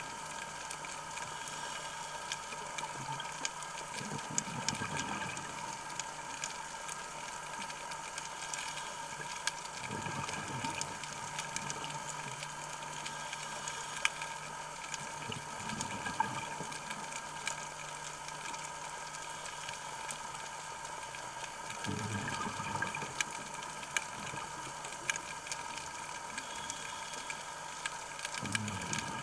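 Underwater sound of a scuba diver breathing through a regulator: a rush of exhaled bubbles about every six seconds, over a steady high hum and scattered faint clicks.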